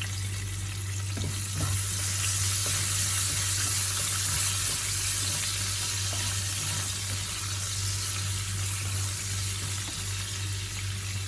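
Garlic and ginger sizzling in hot olive oil in a frying pan, a steady hiss that grows a little louder about two seconds in.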